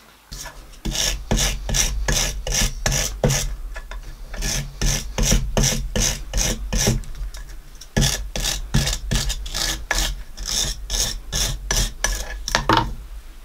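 Hand wire brush scrubbing a freshly silver-soldered copper boiler-stay fitting on a metal turntable, cleaning up the joint. Quick back-and-forth strokes, about three a second, with two short breaks, stopping near the end.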